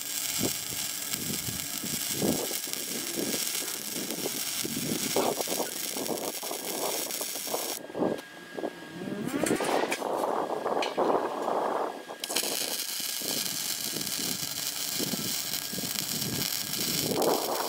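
Electric arc welding on a steel column: a steady crackling hiss from the arc. It stops about eight seconds in and starts again about four seconds later.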